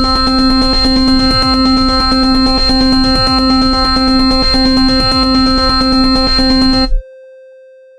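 Electronic beat with a loud, constant buzzing synthesizer tone imitating a wasp over a busy drum pattern. It cuts off abruptly about seven seconds in, leaving a single tone that fades away.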